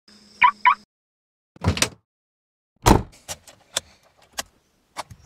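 Car remote-lock chirp, two short beeps as the key fob button is pressed, then a rustle and a car door shutting with a thud about three seconds in. A few sharp clicks and jingling keys follow.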